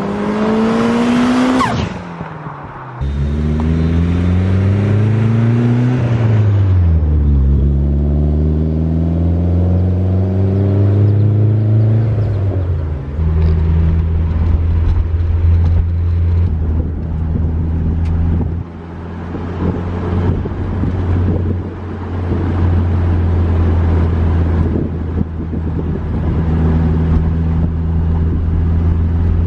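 Turbocharged 4G63 four-cylinder engine of a 500 hp Eagle Talon accelerating, its note climbing in pulls and dropping between shifts. For roughly the second half it holds a steady note at constant engine speed, with a few brief breaks.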